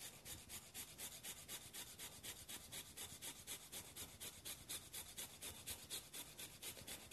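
Fresh ginger root being grated on a microplane rasp grater: quick back-and-forth strokes, about six a second, making a faint, even rasping.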